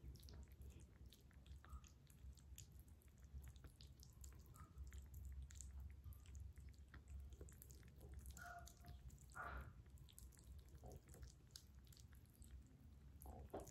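Several kittens eating from bowls: faint, quick smacking and licking clicks, with two brief squeaks a little after halfway.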